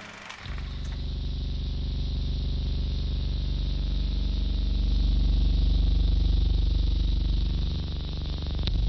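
A vehicle engine running steadily: a low hum with a fast, even pulse that starts about half a second in.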